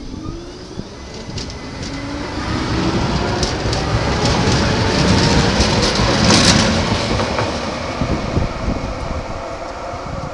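SL95 light-rail tram accelerating past close by: its motor whine rises in pitch as it pulls away, then a rumble and sharp clicks of the wheels over the rails and crossing. It is loudest about six seconds in and eases off as it passes.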